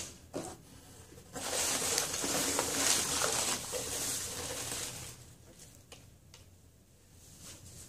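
Crinkle-cut paper shred packing filler rustling and crackling as handfuls are scooped out of a cardboard box. The rustling is loudest from about one and a half to five seconds in, with a few small crinkles after it.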